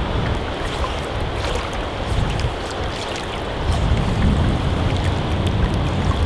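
Steady rush of river current, with wind buffeting the microphone in a low rumble that swells about four seconds in.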